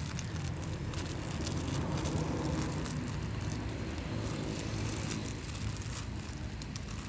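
Clear plastic toy packaging crinkling and rustling as it is pulled open by hand, with small irregular crackles and clicks, over a steady low rumble.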